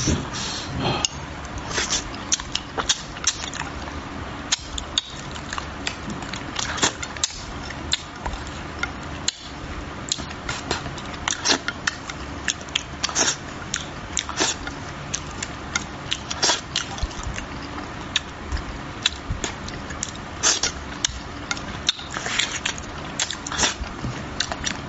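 A person eating spicy braised fish up close: chewing with many irregular wet smacks and clicks.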